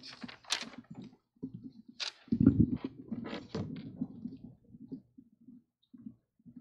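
Handling noise picked up by a podium microphone: scattered clicks and rustles of papers and a loud, deep thump about two and a half seconds in, followed by fainter knocks.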